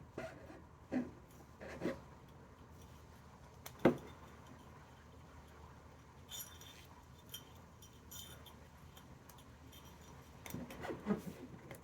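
22-gauge stainless steel wire ring being handled on a ring mandrel, with light metallic clinks and taps. One sharp knock about four seconds in, a few small clinks in the middle and a run of handling clicks near the end.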